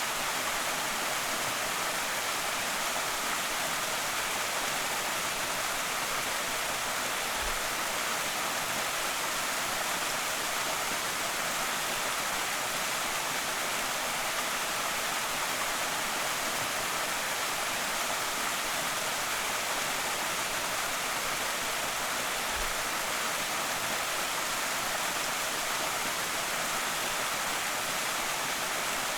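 Creek waterfall splashing and rushing in a steady, unbroken hiss.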